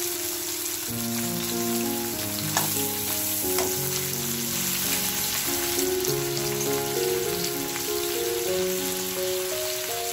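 Sliced potatoes, onions and marinated mutton liver sizzling in hot oil in a wok, a steady frying hiss with a couple of sharp ticks a few seconds in. Background music of slow held notes plays over it.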